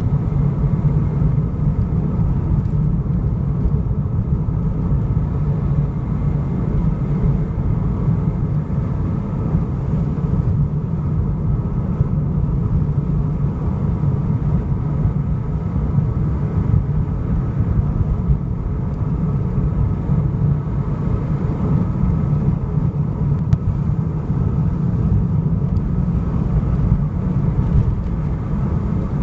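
Car on the move: a steady low rumble of engine and road noise, unchanging throughout.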